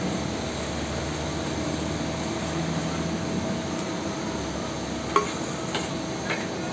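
Food sizzling on a flat metal griddle, with the scrape of a metal spatula and a few sharp metal clicks about five to six seconds in as bread is lifted and set down.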